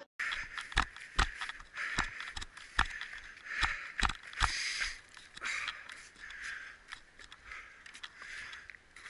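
A person moving on foot, with thudding steps about two to three a second and breathy puffs between them. The steps are most regular in the first half.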